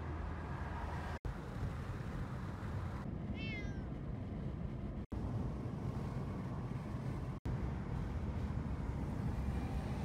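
Steady road rumble from inside a moving car, with one short, high-pitched cat meow about three and a half seconds in. The sound cuts out for an instant three times.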